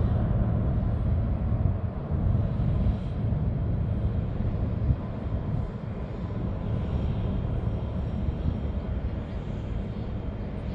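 Boeing 757 freighter's jet engines rumbling deep and steady as it climbs away after takeoff, slowly fading.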